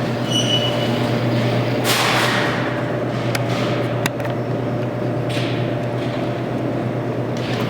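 Claw machine being played: a short electronic beep near the start, then a steady low mechanical hum with a couple of swishing movements and two sharp clicks.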